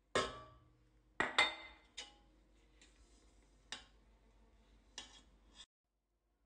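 A spatula knocking and scraping against a stainless steel mixing bowl while dry almond flour and sugar are folded into meringue: about seven sharp clinks with a short ring, two close together about a second in.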